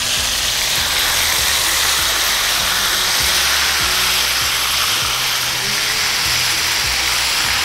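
Marinated chicken pieces sizzling steadily in hot olive oil in a skillet on medium heat, a constant crackling hiss, with soft background music underneath.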